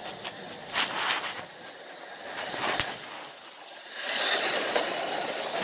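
Lionel 2-6-4 steam locomotive toy train running on tubular three-rail track, its motor and wheels clattering along the rails, with a few sharp clicks about a second in. The noise swells about four seconds in as the engine passes close by.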